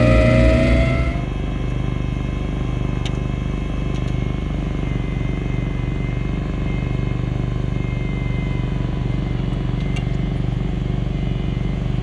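Skid steer snow blower running through deep snow on a Kubota SVL95 diesel track loader: loud close up at the spinning auger for about a second, then a sudden drop to the steady drone of the loader engine and blower heard from farther off.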